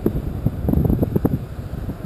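Wind buffeting the microphone in uneven gusts, mostly low-pitched.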